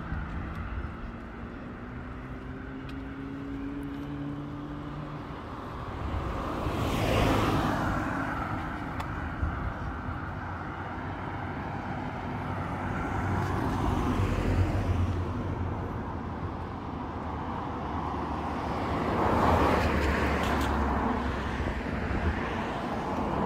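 Street traffic: cars driving past, the noise swelling and fading twice, over a low engine hum.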